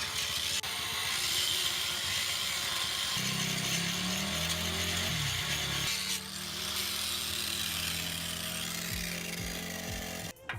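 Power grinder grinding on a rusty steel truck frame: a steady high grinding hiss over the motor's whine, the motor's pitch sagging under load for a few seconds in the middle, then stopping abruptly near the end.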